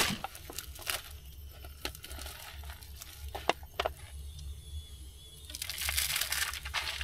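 Plastic wrapping of an instant-noodle cup crinkling and tearing as it is unwrapped and opened by hand. There are a few sharp clicks in the first half, then a longer spell of crinkling near the end.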